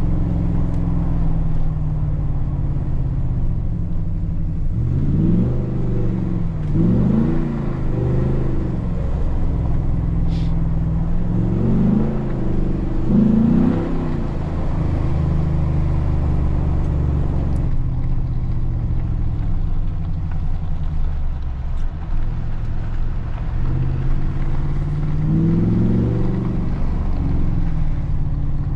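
Ford SVT Raptor's 6.2-litre V8 running through its exhaust while driving, a steady low drone broken by three bouts of throttle, about five seconds in, twelve seconds in and near the end, where the engine note climbs and drops back several times.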